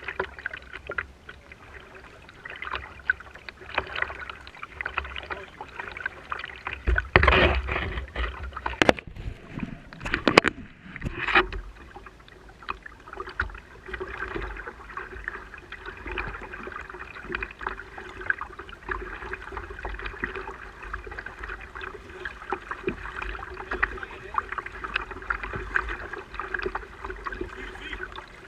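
Water moving against a fishing kayak's hull, with scattered small ticks. A louder stretch with several sharp knocks comes about seven to twelve seconds in.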